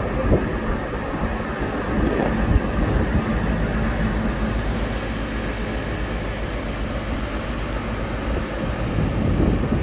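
Steady rumbling wind noise on the microphone at the ship's rail, with a faint low hum underneath.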